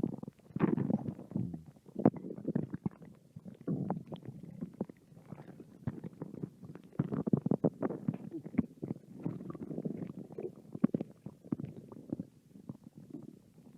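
Hungry human stomach growling: an unbroken run of irregular gurgles and rumbles, dotted with many short clicks and pops.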